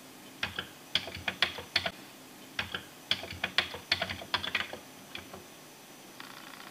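Keys clacking on a Commodore 64 keyboard as BBS commands are typed: a quick run of keystrokes lasting about a second and a half, a short pause, then a second, longer run.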